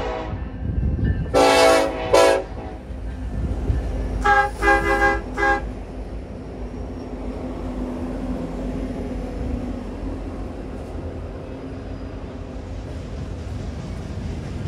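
Freight diesel locomotive air horn sounding: a long blast cutting off at the start, two short blasts about a second and a half in, then a quick run of short toots around four to five seconds in. After that the locomotives' diesel engines rumble and the train rolls steadily past.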